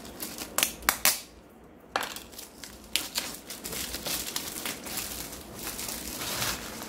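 A few sharp clicks of small packaging being handled, then clear plastic packaging crinkling and rustling as it is handled, from about two seconds in until just before the end.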